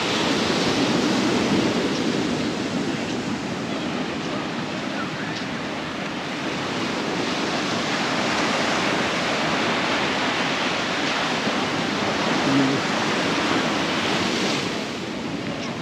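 Sea surf breaking on a beach, a steady wash of noise that swells and eases in slow surges every few seconds.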